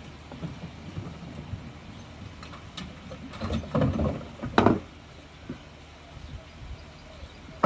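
Backyard bowling lane's handle-operated rope-and-pulley pin setter lifting the pins up into their tubes: a few knocks and clatters of the pins and mechanism, the loudest sharp knock about four and a half seconds in, over a low steady rumble.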